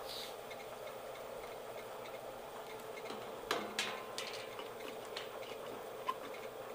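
Bridgeport milling machine spindle turning slowly in back gear, about 70 RPM, with a steady hum. A few sharp plastic clicks and knocks about three and a half to four seconds in come from lube containers being handled on the mill table.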